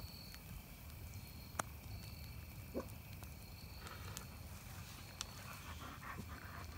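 Wood campfire burning with a low rumble and a few sharp pops. Toward the end, a dog's short snuffling breaths close by.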